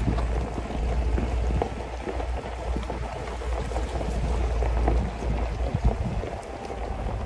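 Tyres of a Suzuki Jimny rolling slowly over a gravel dirt track, with many small crunches and pops from the stones over a steady low rumble of the engine, heard from inside the car.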